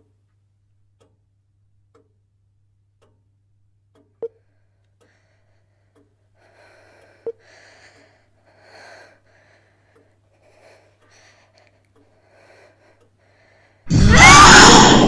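A quiet room with a clock ticking about once a second, two sharp clicks and soft breaths. Near the end a sudden, very loud jump-scare noise hits as a ghostly figure lunges, then slowly dies away.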